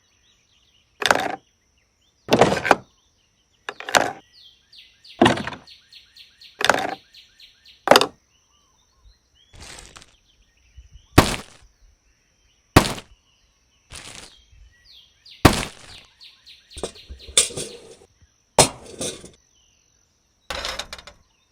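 A series of sharp knocks or blows, about a dozen, mostly one every second and a half, with a short pause midway. Birds chirp faintly between the blows.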